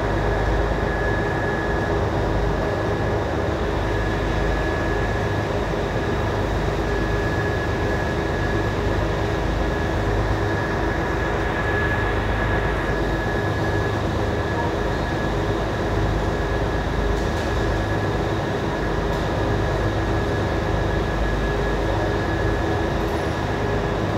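Motorboat under way: its engine running steadily with a constant high whine, over the rush of water from the wake.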